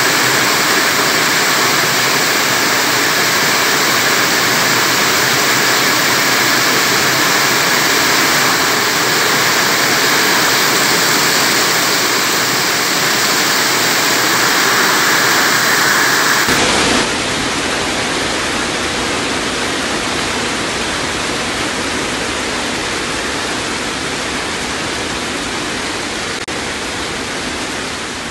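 Heavy rain pouring down in a steady, loud hiss. About two thirds of the way through it cuts abruptly to another recording of rain and hail falling, which fades out near the end.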